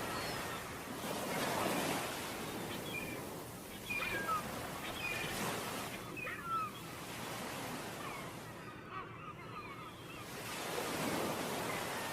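Waves washing onto a beach with wind, the surge swelling twice, about a second in and again near the end, with short high chirps scattered over it.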